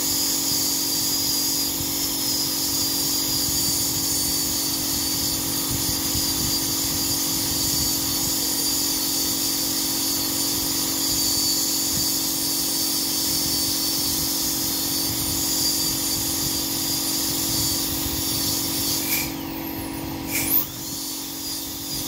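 High-speed dental handpiece (dentist's drill) running with a steady high whine as it cuts into the upper teeth, preparing them for porcelain crowns, over a steady low hum. Near the end it stops for about two seconds, with a couple of short sounds and one sharp click, then starts again.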